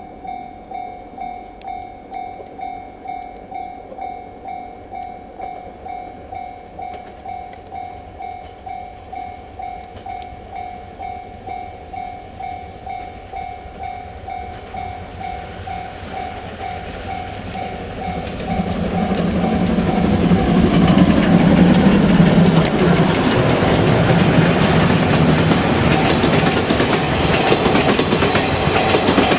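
Japanese level-crossing bell ringing in a quick, even rhythm. About 18 seconds in, the C57 steam locomotive and its coaches run over the crossing with a loud rumble and wheels clattering over the rail joints, drowning out the bell.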